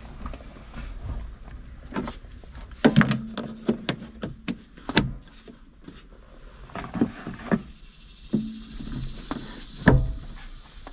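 Scattered clicks, taps and scrapes of a screwdriver and hands working at the PTO control linkage inside a tractor's plastic side console, with a few sharper knocks about three, five and ten seconds in as the lever is handled.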